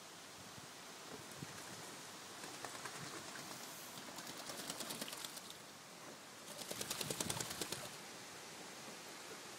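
Bird wings flapping in two quick fluttering bursts, the second louder, over faint outdoor background noise.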